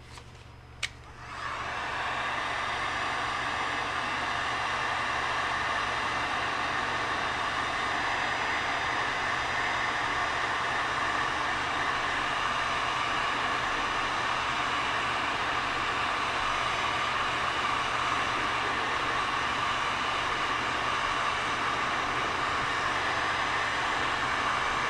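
Two clicks, then an electric heat gun starts up about a second in and blows steadily, warming a gummed-up nitro engine so its stuck parts will come loose.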